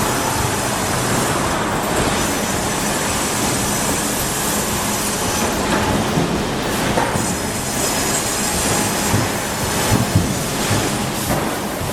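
Sawmill machinery running: a steady, dense mechanical din with a faint high whine, and a few knocks near the end.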